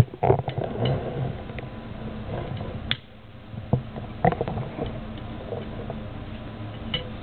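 Hands fitting a small sealed radioactive source into the metal clamp of a lab stand: scattered knocks, clicks and scrapes of metal being handled.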